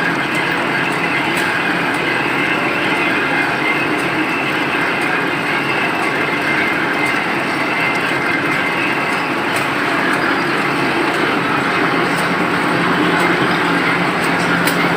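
Screen-printing machine running with a steady mechanical noise and a few sharp ticks.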